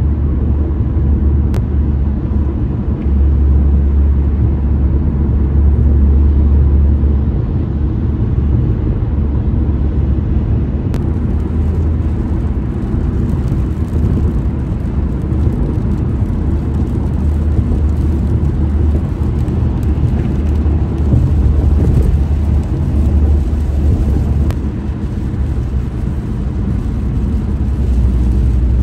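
Steady low rumble of a car driving on a freeway, heard from inside the cabin: engine and tyre noise on wet pavement.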